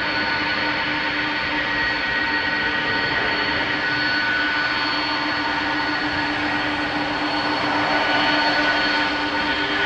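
Boeing 747-400 freighter's four turbofan jet engines running at taxi power: a steady jet whine with several constant tones over a rushing noise, growing slightly louder about eight seconds in as the jet draws nearer.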